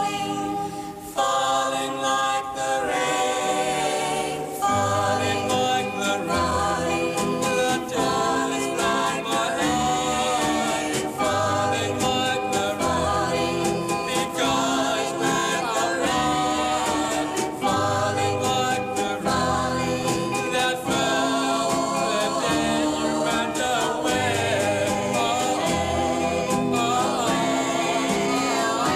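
Doo-wop vocal group singing in close harmony, over a walking bass and a steady beat.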